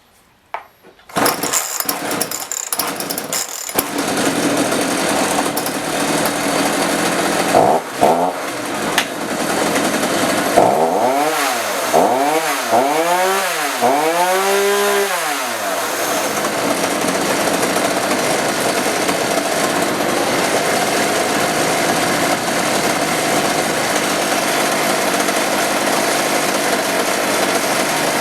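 Homelite 3514C two-stroke chainsaw engine started without choke, catching about a second in and running. Its revs rise and fall several times as the throttle is blipped, about 10 to 15 seconds in, and then it runs steadily. Its earlier stalling is blamed on a bad spark plug.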